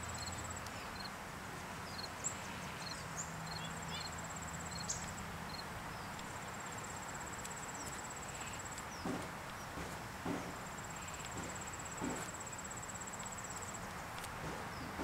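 Outdoor summer ambience: an insect's high, rapidly pulsing trill, repeating in stretches of a few seconds, over a steady background hush. There are short high chirps in the first few seconds and a few soft knocks around the middle.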